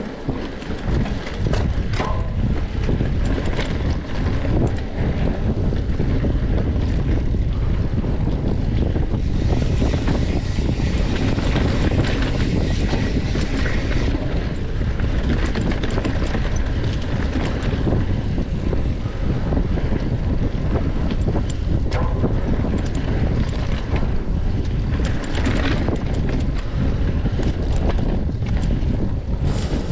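Wind buffeting a camera microphone on a moving bicycle, a steady low rumble throughout, with frequent short knocks and rattles from the bike over rough ground.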